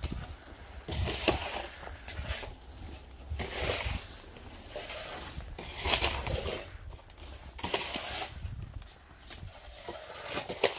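Snow shovel scraping along a paver walkway and scooping snow, in repeated strokes about every one to two seconds.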